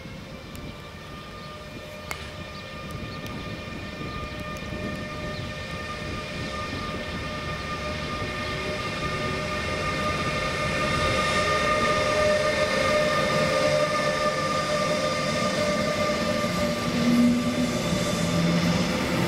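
DB class 182 Taurus electric locomotive hauling double-deck regional coaches approaches and passes, its steady whine of several tones growing louder as it nears. The rolling noise of the coaches follows near the end.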